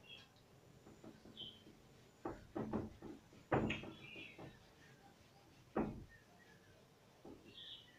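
Cloth duster wiping marker writing off a whiteboard: a handful of brief, irregular rubbing strokes and soft bumps against the board, the strongest a little past the middle.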